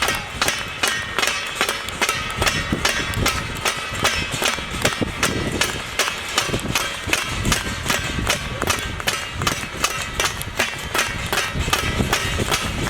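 Metal thalis (steel plates) being beaten, a rapid, steady clanging of about three strikes a second with a metallic ring after each strike.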